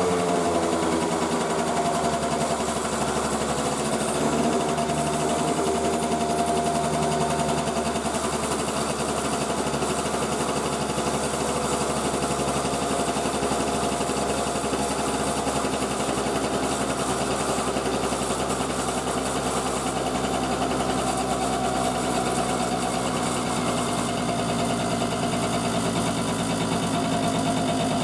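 Motorcycle engine settling down from a blip of the throttle at the start, then idling steadily on freshly fitted spark plugs.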